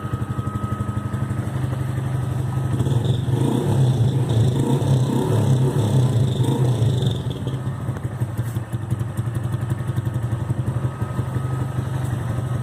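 160 cc motorcycle engine idling steadily, with a thin high whine that the owner takes for a noisy fuel pump. About a second and a half in the engine note picks up a little, then settles back after about seven seconds.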